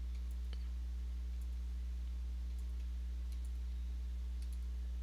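Computer mouse clicking a few times, faint and irregular, over a steady low hum.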